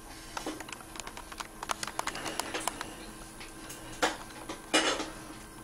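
A scatter of light clicks and small knocks, thickest around the middle, with a louder knock about four seconds in and a brief rattling clatter near the end.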